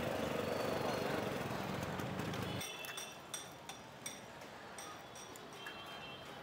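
City street ambience: a dense low rumble of traffic and voices. About two and a half seconds in it cuts abruptly to a quieter street sound with scattered sharp clinks and taps.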